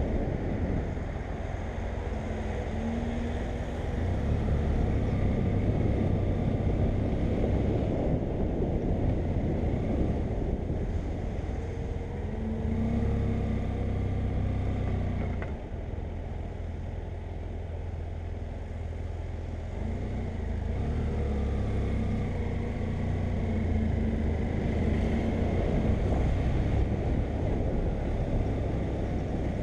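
BMW F800GS parallel-twin engine running under way, its note rising and falling a few times as the rider changes speed, over a heavy rush of riding wind.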